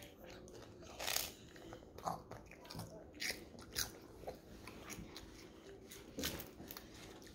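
Wafer ice cream cones being bitten and chewed: a string of short, irregular crisp crunches, the loudest about a second in.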